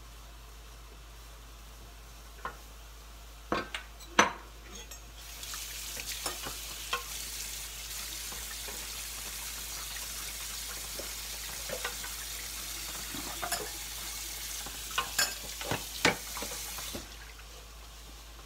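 Mushrooms with garlic and ginger frying in a hot pan, stirred with a wooden spoon: a few knocks of utensils on the pan, then sizzling that starts about five seconds in and cuts off near the end, with spoon knocks through it.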